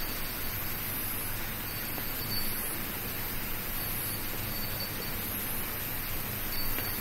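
Steady, even hiss of outdoor night ambience, with a faint high tone that comes and goes.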